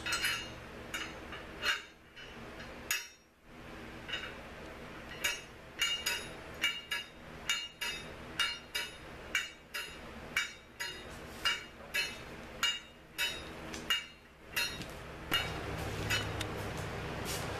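Light metallic clinks and taps, two or three a second with short gaps, each with a brief ring, over a faint steady hum.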